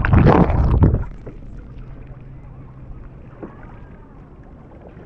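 Kayaking on a river: a loud rush of noise for about the first second, then only a faint, steady background of water and wind.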